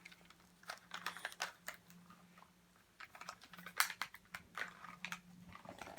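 Irregular light plastic clicks and rattles from a Nerf wrist blaster being handled and worked, its priming mechanism not catching, which the owner takes to mean it is broken. A faint steady low hum runs underneath.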